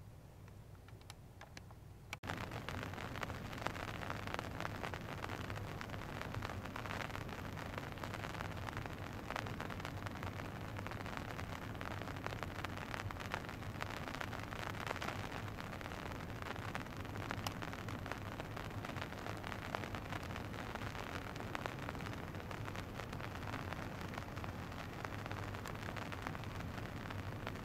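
Steady rain falling, a dense hiss full of small drop ticks, which starts abruptly about two seconds in; a low steady hum lies underneath.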